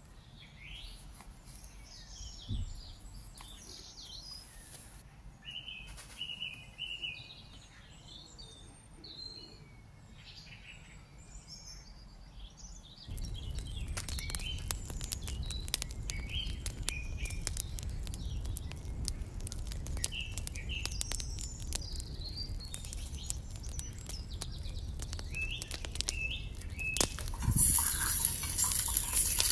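Small birds chirping. About halfway through, a crackling wood fire with a low rumble comes in under the birdsong, and near the end there is a brief louder hiss.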